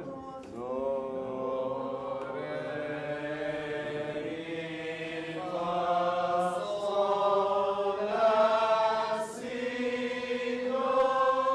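Unaccompanied singing of long held notes, each a second or more, stepping from pitch to pitch and rising overall, as in a scale sung in a music lesson.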